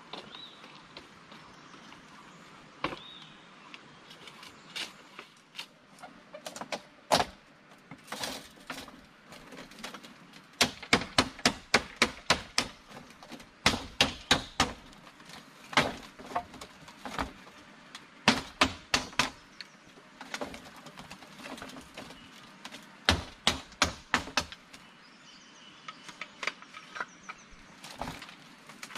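Repeated sharp chopping blows, like a blade hacking into wood, in quick runs of several strikes about three a second with short pauses between.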